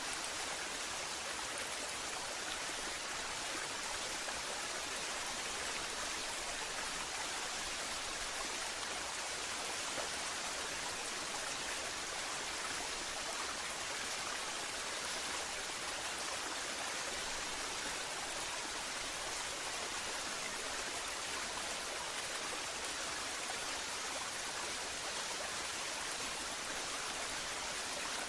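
Waterfall: water pouring and splashing in a steady, even rush with no breaks or changes.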